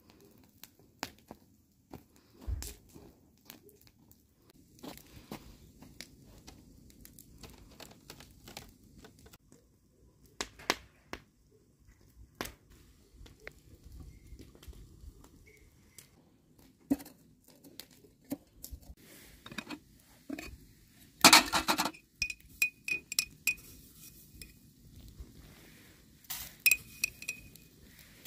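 Dishes and utensils being handled, with scattered clinks and knocks and a louder clatter about two-thirds of the way in, followed by short ringing clinks.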